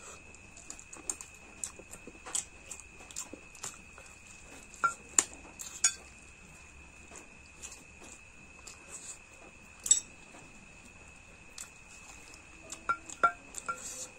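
Eating at a plate: scattered sharp clicks and a few ringing clinks of dish and utensils, bunched about five seconds in and again near the end, over a faint steady high-pitched whine.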